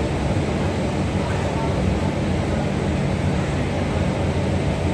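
Indian Railways sleeper-class passenger coaches rolling past close by, a steady rumble of wheels on the rails.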